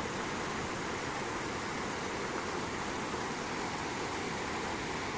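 Steady rushing of a mountain stream's running water, an even hiss with no breaks.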